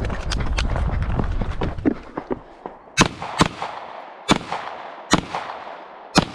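Pistol shots on a shooting range: five loud cracks in a string over the second half, about a second apart, each ringing out briefly. Fainter shots and a low rumble come in the first two seconds.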